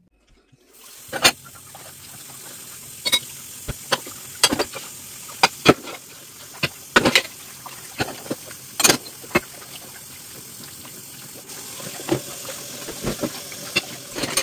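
Kitchen tap running steadily into a stainless steel sink, starting about a second in, while dishes are washed by hand. Ceramic bowls and plates give many short clinks and knocks against each other and the sink.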